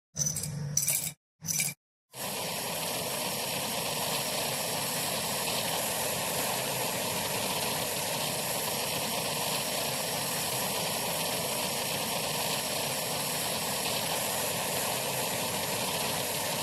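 A few short clipped work sounds, then a steady, even hissing, grinding noise from a workshop tool working on the model's metal body.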